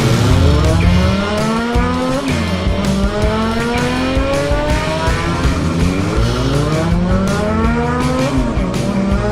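Racing car engine accelerating up through the gears: its pitch climbs, drops back at each shift, then climbs again, with a shift about every two to four seconds.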